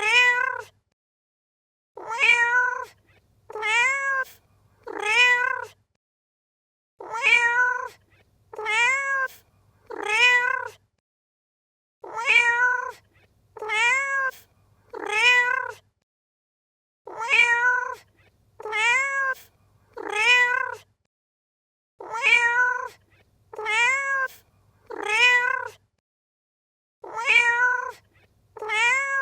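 A domestic cat meowing over and over, in sets of three meows with a pause of about a second between sets. Each meow is under a second long and rises then falls in pitch. The same sequence repeats as a loop.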